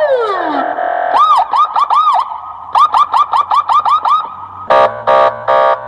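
Electronic police siren working through its tones: a falling wail, then fast rising-and-falling yelp chirps that speed up, ending in three short, harsh horn blasts.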